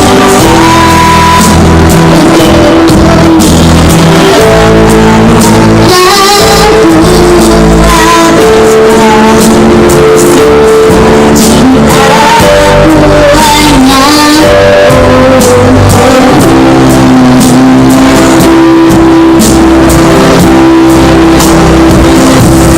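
A solo singer performing over a loud backing track, the melody wavering and gliding over held accompaniment chords. The sound is very loud throughout.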